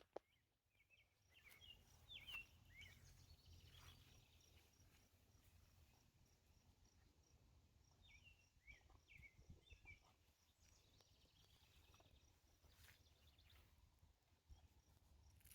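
Near silence with faint outdoor ambience: two short bouts of faint bird chirps, over a steady faint high-pitched pulsing and a low hum.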